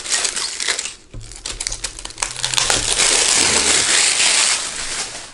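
Clear plastic wrapping crinkling as it is pulled off a hardcover photo album and crumpled in the hand: a dense, crackly rustle, in short bursts during the first second and then almost continuous until near the end.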